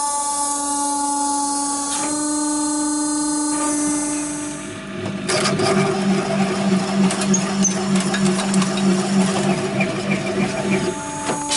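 Hydraulic hose workshop machinery: a motor runs with a steady pitched hum. About five seconds in, a louder machine starts running with a rough, fluctuating noise for about six seconds. It stops with a sharp click, and the steady hum carries on.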